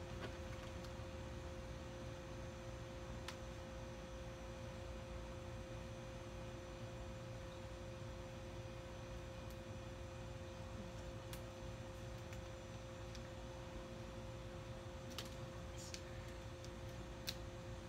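A steady low hum holding two tones, with a few sharp snaps scattered through it, most of them near the end: rubber bands being stretched and let go onto a watermelon's rind.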